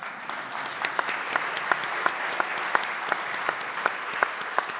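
Audience applauding: many hands clapping together, with sharp single claps standing out from the steady patter.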